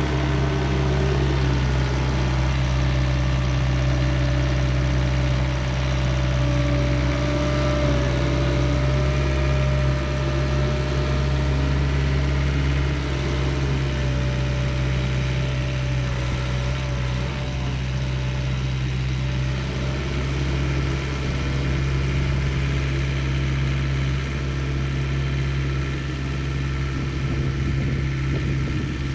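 A diesel engine of compact earthmoving equipment running steadily, with a thin wavering whine over it during the first half.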